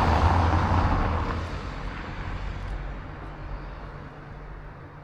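A vehicle going past, with a low rumble, loudest at first and then fading away over a few seconds.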